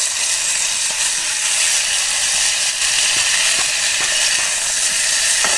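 Fresh flat beans sizzling steadily in hot mustard oil in a steel kadhai, with a few light clicks of the spatula.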